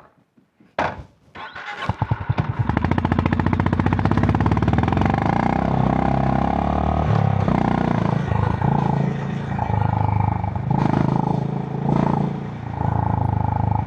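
Honda CB350 H'ness's air-cooled single-cylinder engine starting about two seconds in and settling into a steady, thumpy, bassy idle through the stock exhaust, with a couple of brief rises in revs near the end.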